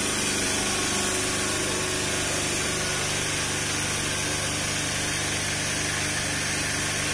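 Sanitization tunnel's misting pump running steadily: a constant motor drone with an even hiss of spray over it.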